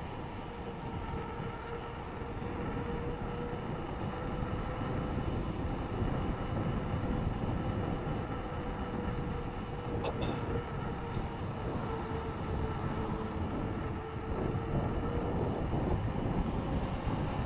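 Wind rushing over the camera microphone and tyre noise from a mountain bike rolling on asphalt, with a steady hum throughout and a brief click about ten seconds in.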